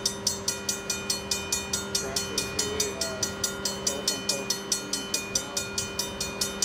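Railroad crossing warning bell ringing rapidly and evenly, about five strokes a second, over a steady low hum: the crossing signals are activated.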